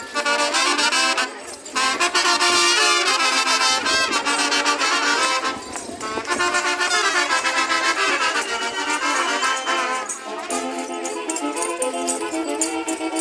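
Live brass music for a traditional Mexican folk dance, a lively tune of sustained, overlapping notes with brief breaks between phrases.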